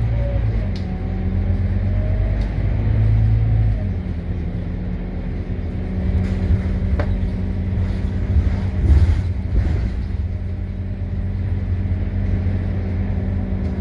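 Interior noise of a Scania K230UB city bus on the move: a deep engine drone that drops in level about four seconds in, then a steady hum. A single sharp click comes about seven seconds in.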